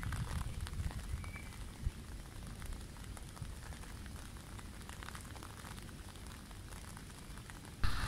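Riverside ambience: wind buffeting the microphone at first, then a steady wash of flowing river water with scattered light ticks. A sudden louder wash starts just before the end.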